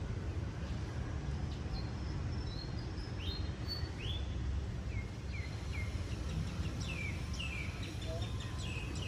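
Small birds chirping: many short, downward-sweeping calls that start about two seconds in and come thicker near the end, over a steady low rumble.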